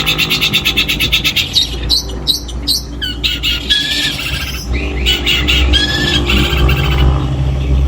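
Long-tailed shrike (cendet) singing a loud, harsh, varied song: a fast rattling trill at the start, then chattering phrases with short whistled notes mixed in, over a steady low hum.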